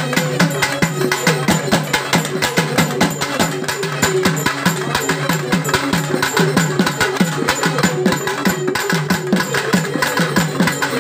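Festival drumming: a double-headed barrel drum beaten hard in a fast, steady, driving rhythm, loud and unbroken.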